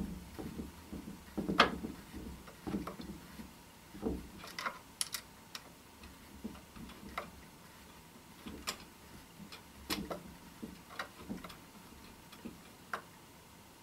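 Irregular light clicks and taps as an Allen key tightens a screw in the plastic rear stock of an airsoft sniper rifle and the parts are handled, with the loudest tap about a second and a half in.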